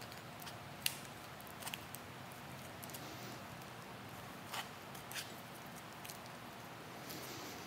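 Electrical tape being pulled off the roll and wrapped around the ends of a wire harness, quiet handling with a few faint sharp clicks and crackles.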